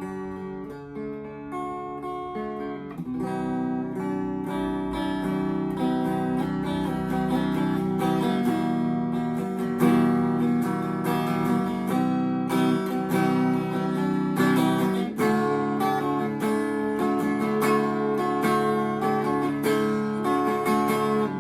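Electric guitar, an Epiphone Les Paul, played through an Orange Baby Terror amp on its clean channel into a Celestion G12 Neo speaker cabinet: strummed chords and picked notes ringing with a clean tone, gain set low.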